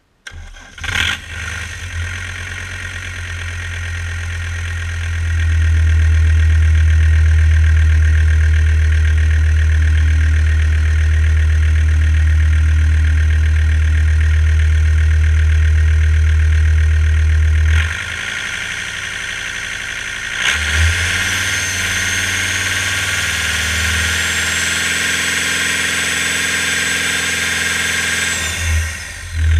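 John Deere 5030LV02 turbocharged diesel engine, a good runner, starting within the first second or so and running. About 5 s in it speeds up and holds there for roughly 13 s, then drops back. About 20 s in it speeds up again with a thin whine slowly climbing in pitch, then settles near the end.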